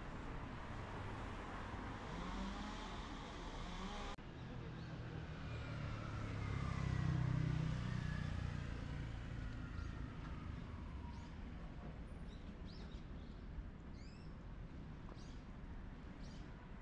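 Street ambience: a car passes, swelling and fading with a falling whine, and small birds chirp in the last few seconds.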